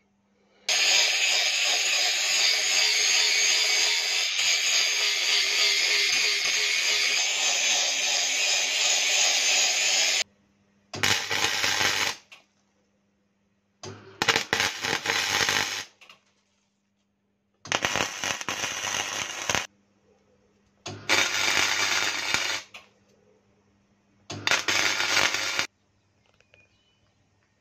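Wire-feed (MIG) welder arc crackling as a bead is laid on a pocket bike's steel frame: one long run of about ten seconds, then five short runs of one to two seconds each with pauses between.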